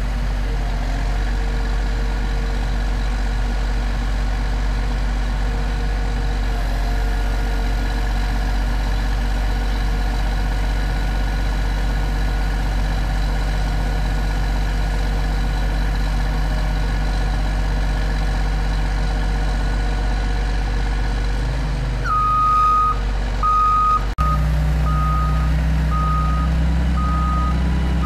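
Rough-terrain mobile crane's diesel engine running steadily through a lift. About 22 seconds in a backup alarm sounds, first one held tone and then a steady, evenly paced beeping, with the engine heavier over the last few seconds.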